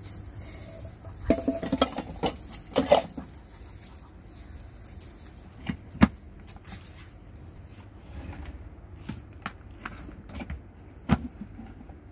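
Rice cooker parts being handled: a cluster of plastic and metal knocks and clinks in the first few seconds, a sharp click about six seconds in as the lid is pressed shut, and another knock near the end.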